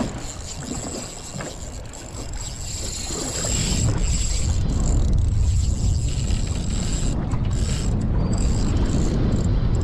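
Spinning reel being cranked against a hooked fish, a mechanical winding whir, with wind rumbling on the microphone that grows louder about a third of the way in.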